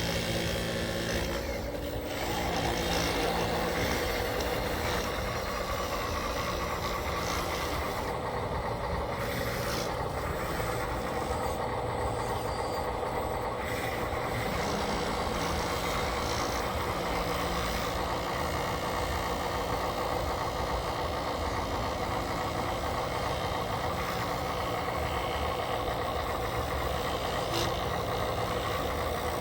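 Radio-controlled construction machines running: a steady mechanical whine over a low rumble, with no break.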